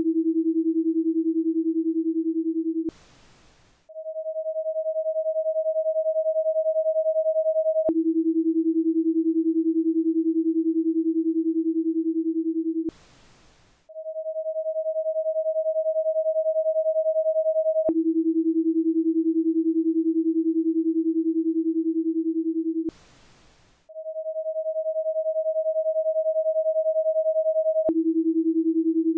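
Electronic breathing-pacer tones: a steady lower tone held for about five seconds to guide the exhale, a second's pause for a breathing space, then a steady higher tone for about four seconds to guide the inhale. The cycle repeats every ten seconds, three times over, and the higher tone swells in as it starts.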